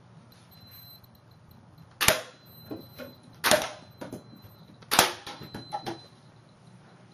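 Homemade coil gun pistol firing three times, about a second and a half apart, each shot a sharp crack followed by a few smaller clicks, with a thin high whine running under them.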